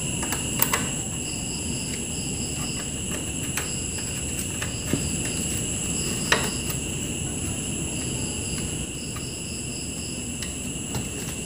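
Insects chirping in short repeated pulse trains over steady high ringing tones, with a few sharp light metal clicks and taps from a screwdriver being handled against a metal TV chassis; the sharpest tap comes about six seconds in.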